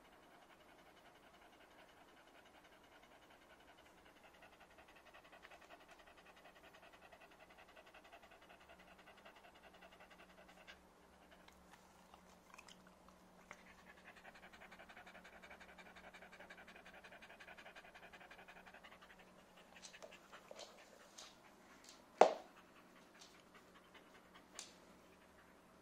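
A corgi panting rapidly, with a short break about halfway through. Near the end come a few clicks and one sharp knock, the loudest sound.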